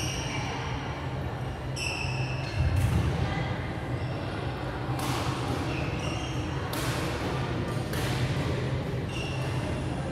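Badminton hall sound: rackets hitting shuttlecocks, sneakers squeaking briefly on the wooden courts and faint voices, over a steady low hum.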